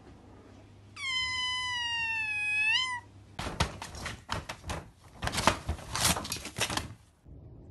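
A cat's long meow, about two seconds, holding level and then rising at the end. Then a cat clawing and ripping the paper of a shoji screen: a quick, uneven run of tearing and scratching strokes lasting about three and a half seconds.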